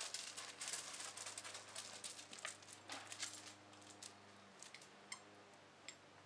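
Faint crunching and scuffing of footsteps on gravel, packed together for the first three and a half seconds, then a few light clicks.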